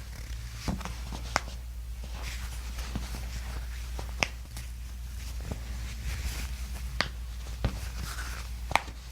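Toe and ankle joints cracking during a chiropractic adjustment: a series of sharp, short pops every second or two, the four loudest about a second and a half in, around four seconds, around seven seconds and near the end, over a low steady hum.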